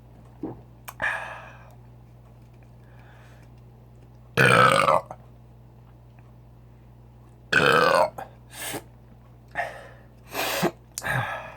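A man burping: two loud, drawn-out belches, one about four seconds in and one about seven and a half seconds in, then a few shorter, quieter ones near the end.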